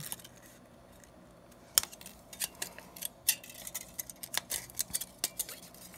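Scissors cutting thin beer-can aluminium sheet: a scattered series of sharp snips and clicks, starting about two seconds in.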